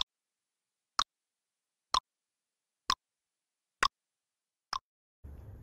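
Countdown timer sound effect: six sharp ticks about a second apart, with dead silence between them.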